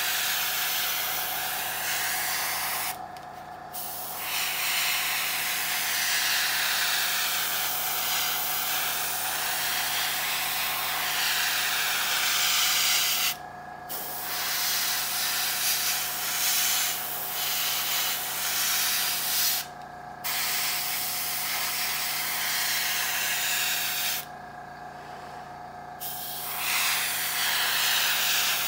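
Airbrush spraying metallic paint: a steady hiss of air in long passes, broken four times by short pauses in the trigger. A faint steady hum runs underneath throughout.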